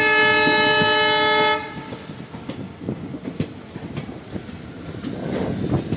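Train locomotive horn sounding one steady blast of about a second and a half, then the running noise of the passenger coaches on the track, with scattered clicks of the wheels over the rails.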